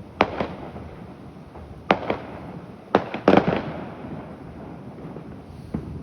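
Fireworks going off: a string of sharp bangs and pops in quick pairs and clusters, the loudest in a burst of several about three seconds in, each trailing off in a short echo.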